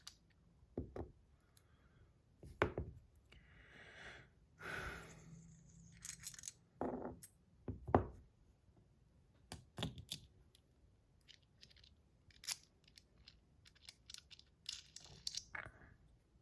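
Hands handling a metal fidget spinner and its parts: scattered small clicks and knocks with a few short rustles and scrapes.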